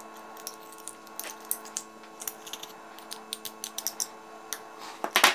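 Metal garlic press and teaspoon clicking and scraping as fresh garlic cloves are squeezed and the pulp is scraped off into a small bowl, with a louder clink about five seconds in.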